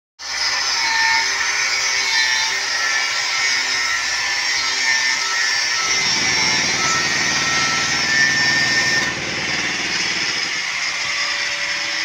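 Angle grinder with a cutting disc cutting through steel rebar: a loud, steady high-pitched whine with a grinding hiss. About six seconds in the sound turns rougher and lower.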